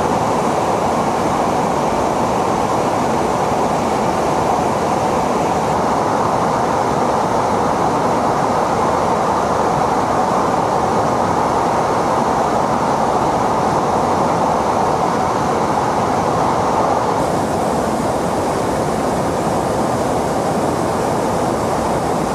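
Steady roar of aircraft cabin noise, engines and rushing air, heard from inside an aircraft in flight.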